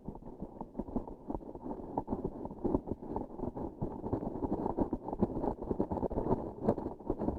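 Close-miked sticky texture sounds: a transparent sticky object being pressed and handled, giving a dense, irregular crackling of small sticky pops and clicks. The sound is muffled, with little top end.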